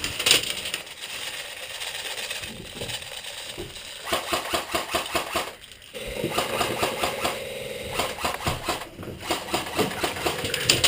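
Airsoft guns firing in long full-auto bursts: a rapid, even clatter of about ten shots a second. It starts about four seconds in, breaks off briefly near six seconds, then runs on with a steady whine under it.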